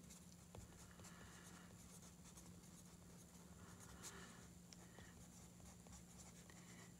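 Faint scratching of a pen writing on sketchbook paper, coming in short strokes with small ticks between them, over a low steady hum.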